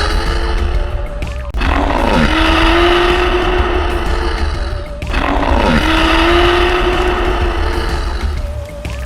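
A heavily distorted, bass-boosted cartoon sound clip: gliding and falling tones over a constant heavy bass rumble, the same phrase repeating about every three and a half seconds.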